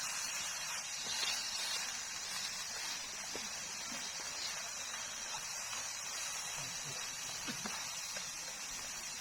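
A steady high-pitched hiss with a few faint clicks.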